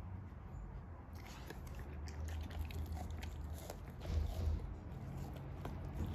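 A dog chewing a chunk of raw meat, with irregular mouth clicks and smacks that start about a second in and are a little louder around four seconds in. A low steady hum runs underneath.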